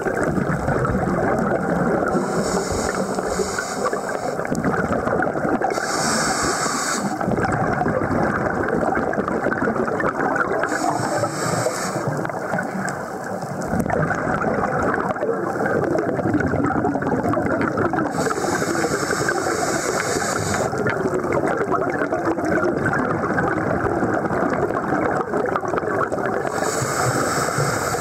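Scuba diver's regulator breathing heard underwater: steady bubbling and gurgling, with a higher hiss about five times, every four to eight seconds.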